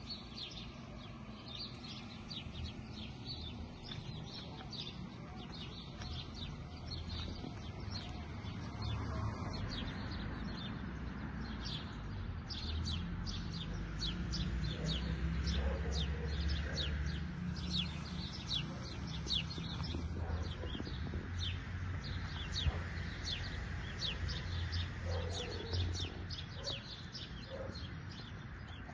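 Small birds chirping over and over, short high calls throughout, over a low rumble that grows louder about a third of the way in.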